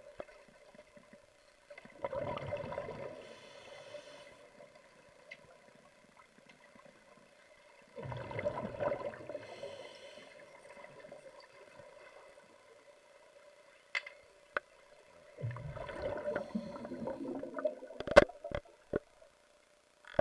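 Muffled water sloshing and gurgling picked up underwater in a pool, coming in three bursts with a faint steady hum underneath, and a few sharp clicks near the end.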